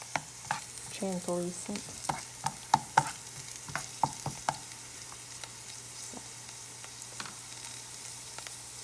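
Onions sizzling in butter and oil in a frying pan, stirred with a spatula that taps and clicks against the pan during the first half; after that only the steady sizzle remains.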